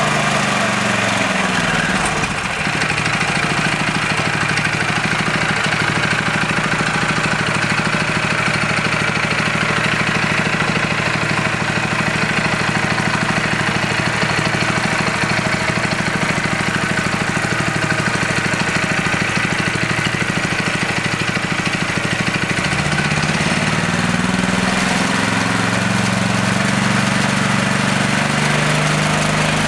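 Honda GX small single-cylinder four-stroke engine running and driving a torque converter belt drive. Its revs fall in the first two seconds, it runs steadily at a lower speed, then revs rise again about 23 seconds in.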